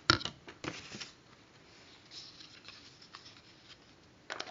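Handling noise: a sharp click at the start, a few lighter clicks and rustles over the next second, then quiet room noise with a few small clicks near the end.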